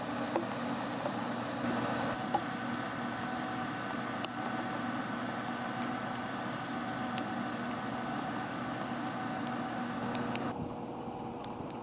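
BAe 146 jet's turbofan engines running steadily, a constant hum with a few steady tones. Near the end the higher, hissing part of the sound drops away abruptly.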